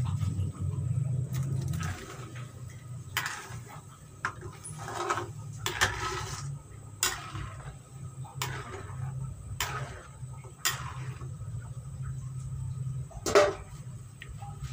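Cooking at the stove with a pot of chicken broth heating: a steady low rumble, louder for the first two seconds, with about nine sharp clinks and knocks of a utensil against the pot, the loudest near the end.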